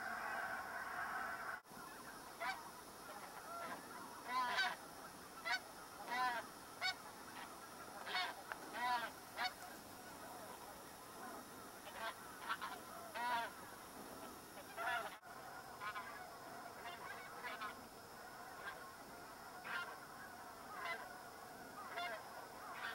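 A flock of geese calling in flight. A dense chorus of many overlapping honks in the first second or two breaks off suddenly at a cut. After it come separate honks, often two or three close together, about one every second.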